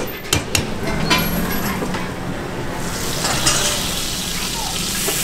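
A metal spatula clanks and scrapes a few times in a large wok of frying mee goreng sotong. From about three seconds in, the sizzle of the hot oil grows louder and runs on steadily.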